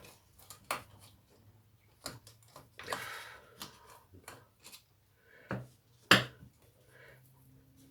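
Scattered clicks and knocks of tools and plastic parts being handled while a strimmer is taken apart, with a short rustle about three seconds in and one sharp click, the loudest, about six seconds in.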